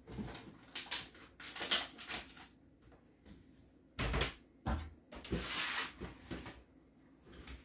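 A kitchen wall cabinet being used as things are put away: several separate knocks and clatters of the door and of items set on the shelf, with a heavier thump about four seconds in and a longer rustle about five seconds in.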